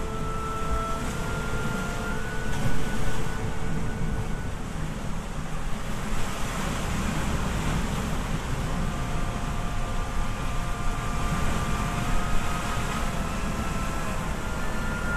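Surf breaking and washing over lava rocks at the foot of sea cliffs, under heavy wind rumble on the microphone, with a louder gust or wave about three seconds in.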